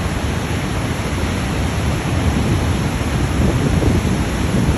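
Niagara Falls' water pouring down in a loud, steady rush, so loud that a person right beside you can hardly be heard.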